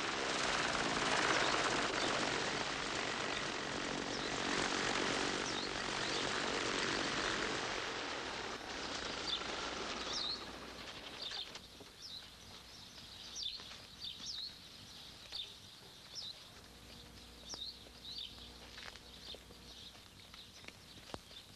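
A light propeller plane's engine running loud, its pitch dropping at first, then fading out about eleven seconds in. Birds chirp repeatedly through the second half.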